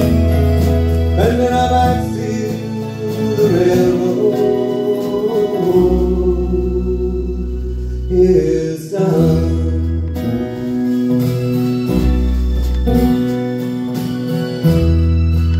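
Live folk band playing an instrumental passage: acoustic guitar over long held bass notes and sustained chords.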